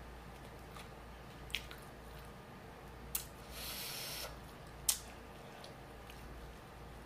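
Mouth sounds of chewing: a few sharp wet smacks, the loudest about five seconds in, and a hiss of breath blown out through pursed lips lasting just under a second, about three and a half seconds in.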